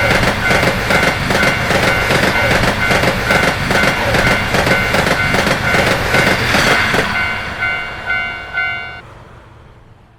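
Japanese level-crossing warning bell ringing over and over while a train passes with loud rattling wheel clatter. The train noise stops about seven seconds in, the bell rings on alone for a couple of seconds and then cuts off, leaving a low hum that fades away.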